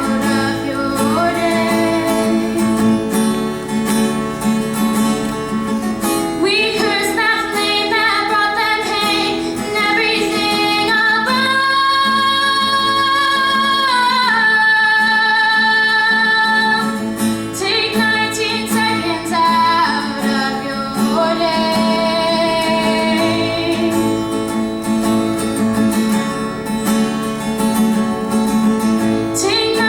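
A young female voice singing an original song to strummed acoustic guitar, with long held notes about midway through.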